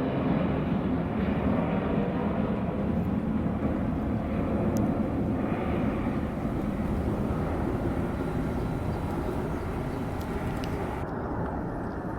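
Jet engine noise from a Boeing 737-900ER's CFM56-7B turbofans during takeoff: a steady, low rumble that slowly fades.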